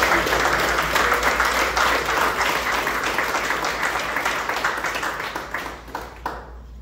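Audience applauding: many hands clapping, which dies away about six seconds in.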